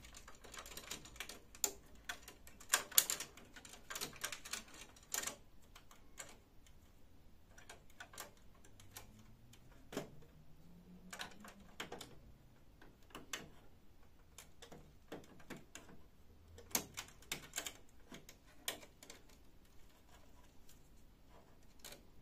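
Irregular clicks and rattles of small plastic wiring connectors and their wires being handled and unplugged by gloved hands at a copier's fuser unit. The clicks are busiest in the first few seconds, sparse through the middle, and come in another short cluster past the middle.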